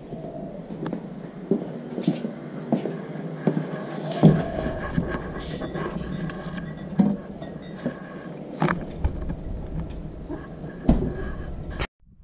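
Handling knocks and clicks at an old fridge: its door opened and shut and a beer bottle taken out, with several sharp knocks, the loudest about four and seven seconds in.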